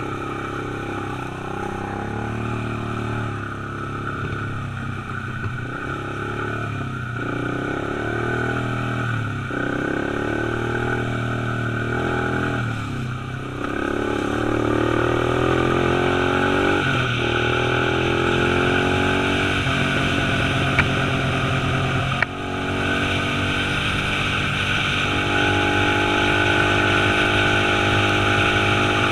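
Small dirt bike engine under way: its pitch climbs and drops back several times as it accelerates through the gears, then holds steady at a higher pitch for the last several seconds.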